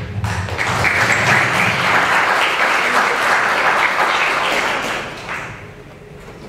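Audience applauding, building quickly and dying away about five seconds in.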